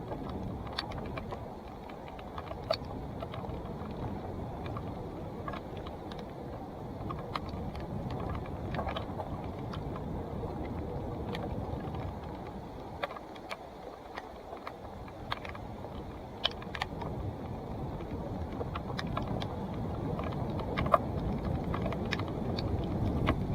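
2017 Salsa Timberjack NX1 mountain bike rolling over a dirt trail: a steady rumble of knobby tyres on dirt, with frequent sharp clicks and knocks from the bike rattling over rocks and roots.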